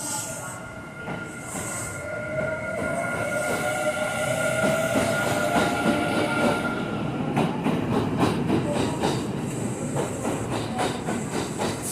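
Kintetsu electric train running slowly into the depot. Over the first half there is a steady whine, then a rapid run of wheel clicks over rail joints and points.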